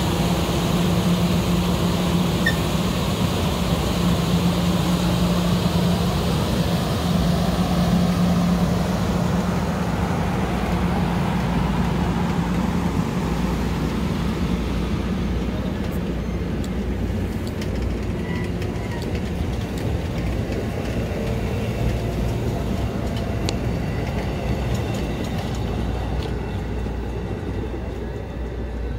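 Amtrak passenger train cars rolling past on the rails, a steady rumble with a low hum in the first third, growing quieter as the rear car goes by near the end.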